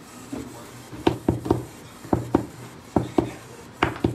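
Rigid plastic card top loaders being handled, giving a run of sharp clicks and taps, mostly in quick pairs, about nine in all.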